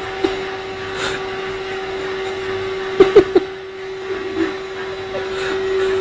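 Vacuum cleaner motor running with a steady whine. About three seconds in come three sharp knocks in quick succession.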